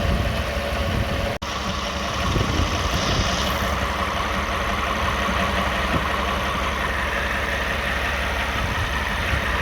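A 2009 Toyota Sienna's 3.5-litre V6 running at idle, heard up close under the van at the open flex-plate inspection cover. The running engine carries the buzzing, rattling noise being diagnosed, which could be the flex plate, the torque converter or the transmission pump.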